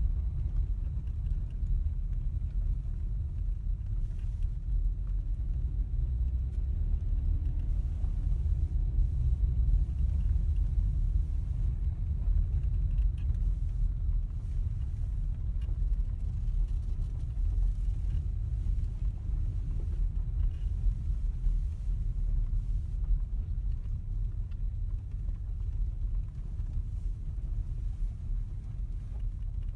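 Steady low rumble inside a car's cabin as it drives slowly on a gravel road, with engine and tyre noise.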